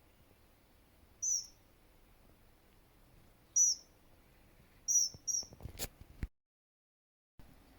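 A small bird giving short, high-pitched calls, four in all, the last two close together. A sharp click follows, then the sound cuts out completely for about a second.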